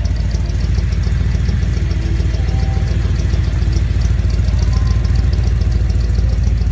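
A 327 cubic-inch V8 with a four-barrel carburettor idling steadily, its even low pulsing heard through dual Flowmaster mufflers.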